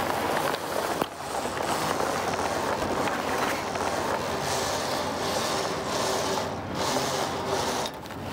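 Loose sail cloth of a headsail rustling and flapping in the breeze as it is hoisted, with a continuous rush of wind noise.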